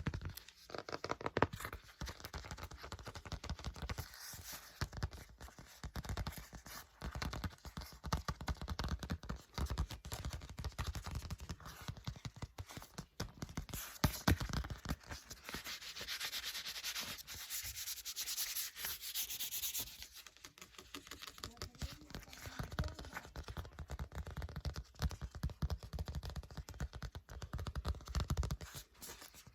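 Paper book pages being flipped and riffled in quick succession, a dense run of papery flicks and rubbing, with a stretch of louder hissy rustling about halfway through.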